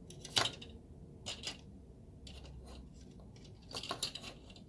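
Sharp plastic clicks and snips as Bandai model-kit parts are cut from the plastic runner and handled: a loud snip about half a second in, two more a second later, and a quick cluster near the end.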